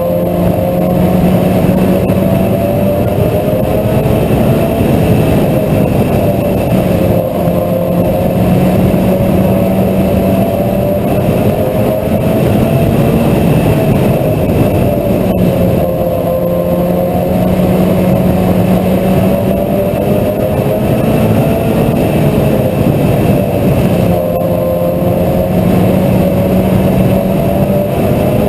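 Mini stock race car engine running hard under race load, its pitch rising and falling in a regular cycle about every eight seconds as the car speeds up and slows through each lap of the short oval.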